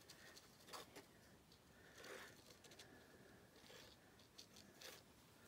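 Near silence, with a few faint taps and soft rustles of a small jar of embossing powder being shaken and sprinkled over paper.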